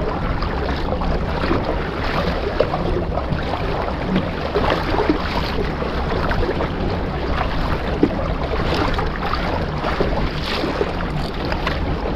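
Water lapping and splashing against a kayak's hull, with lots of small splashes and wind buffeting the microphone.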